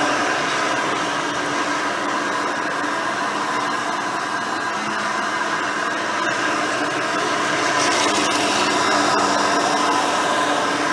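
Hoover Elite 350 upright vacuum running steadily on carpet, its motor giving a steady whine with a few held tones and small swells in level, with an older-style Cleveland Wood Products brush roll turning.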